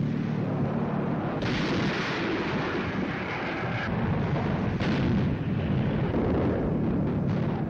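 Battery of heavy anti-aircraft guns firing a barrage: a dense, continuous rumble of gunfire, loudest from about one and a half to four seconds in.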